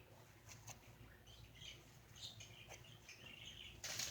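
Near silence broken by faint, scattered little rustles and scrapes of squishy toys being handled, with a brief louder rustle near the end.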